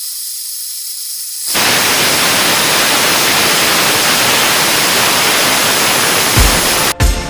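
Pressure cooker whistling: steam blowing out under the weight valve as a loud, steady hiss that starts about a second and a half in, after a fainter high hiss. The cooker has come up to pressure.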